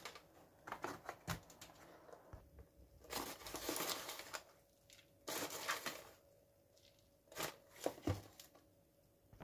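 Faint, scattered rustling and light clicks from a box of powdered sugar being handled and tipped over a plastic mixing bowl, in several short bursts with quiet gaps between them.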